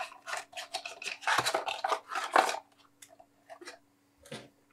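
Cardboard packaging being handled and folded, with a run of rustling, crunching scrapes in the first couple of seconds, then quieter with a few small taps near the end.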